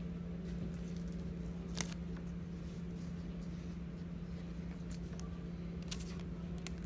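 Quiet handling of trading cards and a clear plastic card sleeve by gloved hands: a few faint taps and rustles, about two seconds in and again near the end, over a steady low hum.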